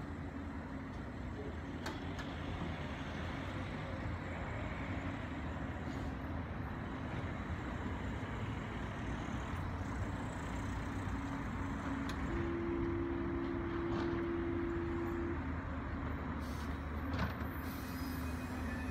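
Electric low-floor tram standing at a platform, its equipment giving a steady low hum and rumble, with a steady tone held for about three seconds past the middle.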